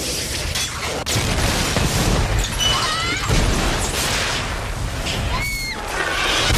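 Film sound effects of an explosion blasting through a house: a sudden deep blast about a second in, then a long heavy rumble with crashing debris.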